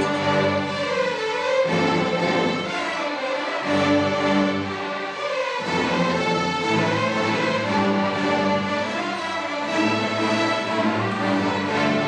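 Large massed string orchestra of violins and cellos playing sustained, slow-moving chords, the harmony shifting every two seconds or so.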